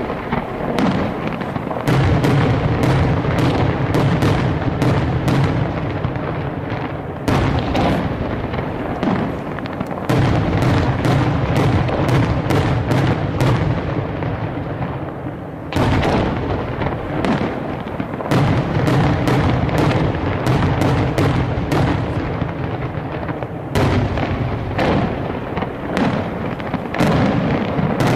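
Aerial fireworks going off in a rapid barrage: many bangs in quick succession over a continuous low rumble. The barrage comes in several waves, each starting with a fresh loud burst.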